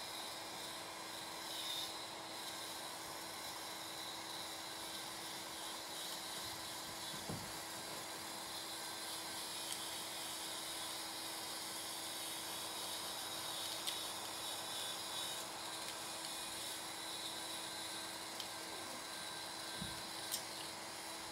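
Small electric hoist motor of a model lift bridge running with a steady hum, with faint clicks and rubbing from the cables and sheaves. Two brief low thumps, one about seven seconds in and one near the end.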